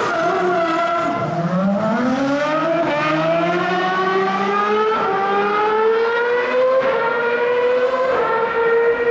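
Racing engine accelerating hard. Its note drops sharply about a second in as it shifts up, then climbs steadily for several seconds, with a slight dip near the end at the next upshift.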